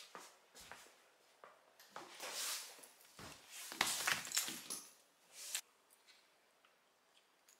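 Rustling and light clicking of a nylon dog harness with a plastic buckle being handled close by, in a run of short scuffs and rustles that is loudest about four seconds in and stops about two-thirds of the way through.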